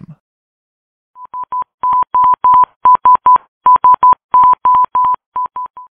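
Morse code beeps: a steady high tone keyed in dots and dashes, spelling SOS twice, a distress call.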